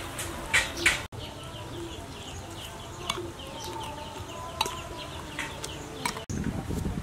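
Spoon stirring a ceramic bowl of thick dipping sauce, with a few faint clinks, over birds chirping about three times a second. Two sharp taps in the first second.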